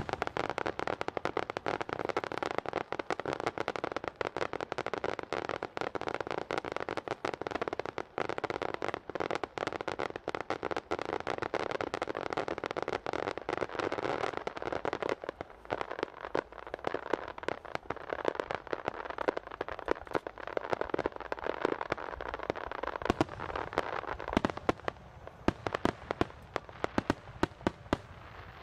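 A starmine fireworks barrage: many shells and ground mines bursting in rapid succession as a dense, continuous crackle. About halfway through it thins out into separate sharp bangs.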